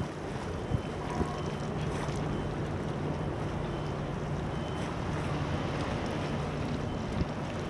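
Low, steady hum of an approaching RoRo cargo ship's engines heard across the water, with wind noise on the microphone. There are two small knocks about a second in.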